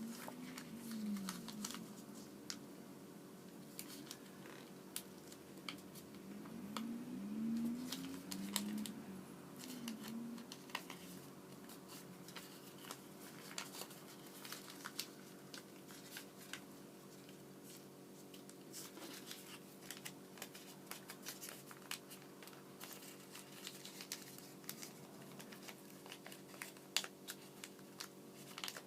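Sheet of origami paper being folded and creased by hand: irregular small crinkles, rustles and taps of the paper. A low wavering hum rises and falls a few times in the first third, over a faint steady background hum.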